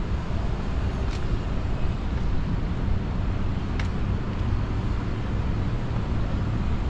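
Steady low rumble of downtown street traffic, with two faint short ticks about a second and nearly four seconds in.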